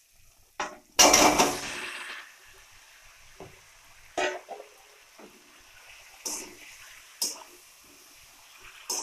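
Peeled ripe mangoes and their juice tipped from a bowl into a kadhai of hot spiced mustard oil: a loud splash and sizzle about a second in that dies away. Then a metal spatula knocks and scrapes against the pan several times as the mangoes are stirred.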